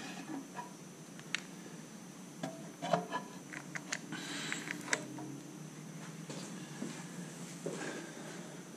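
Scattered light metallic clicks and clinks of a dial indicator and its base being handled and positioned on a plate on the engine's cylinder head, with a cluster of clicks in the middle, over a faint steady hum.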